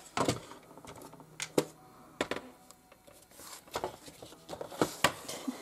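Paper and cardstock being handled on a craft table: a string of short rustles and light taps, about eight of them, spread irregularly.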